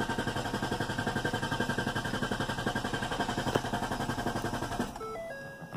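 2012 Ford Fusion 3.0 V6 being cranked by its starter in an even, rhythmic pulse without firing, until the cranking stops near the end and a few short electronic tones sound. This long crank with no start is the fault being chased, which the mechanic puts down to the crankshaft position sensor or its wiring.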